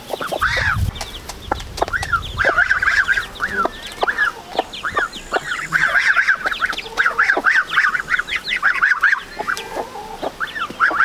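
A broody hen clucking as she feeds her chicks at a feed bowl, with the chicks' quick runs of high peeping and geese calling now and then.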